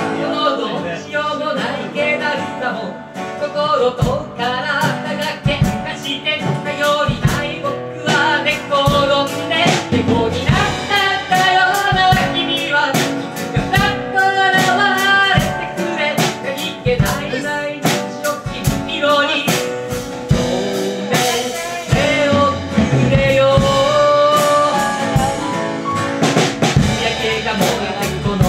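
Live small-band music with acoustic guitar and keyboard, and a Yamaha drum kit coming in about four seconds in, under a pitched melody line.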